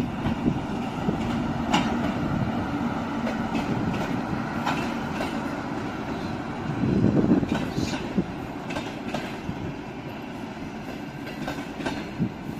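Train rolling past with a steady rumble, its wheels knocking and clacking over rail joints at irregular intervals.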